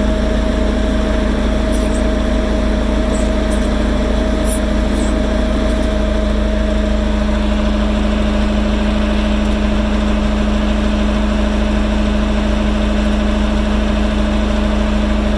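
John Deere 610B backhoe loader's diesel engine idling steadily, with a steady higher whine that fades out about halfway through.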